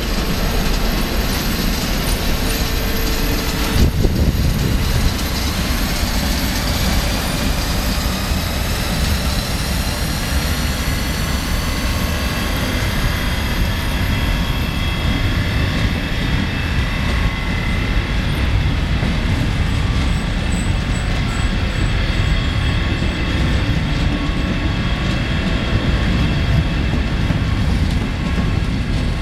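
SBB Re 4/4 II (Re 420) electric locomotive hauling an Interregio train out of the station and gathering speed past the platform, with a whine that climbs steadily in pitch as it accelerates, then evens out. A single knock about four seconds in, and the rumble of the coaches' wheels on the rails as they roll by.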